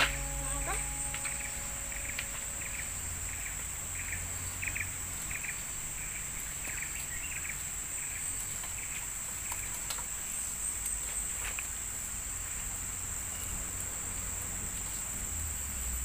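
Forest insects droning steadily at a high pitch, with short chirps repeated every fraction of a second for the first several seconds, then sparser.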